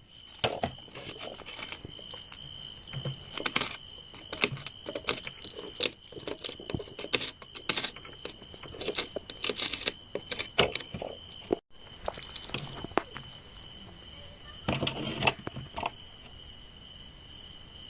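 Hand tools digging and scraping in soil and rock, with irregular clicks, knocks and gritty scrapes. A steady high tone runs underneath.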